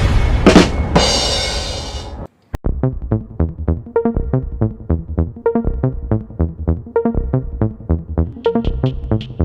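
Electronic background music: a loud, noisy intro sound that cuts off about two seconds in, then, after a brief gap and a click, a track with a steady electronic beat.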